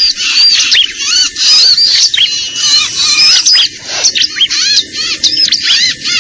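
Bar-winged prinia (ciblek) calls played as a bird-trapper's lure: a dense, unbroken stream of high, quick arched chirps and twitters, many notes overlapping.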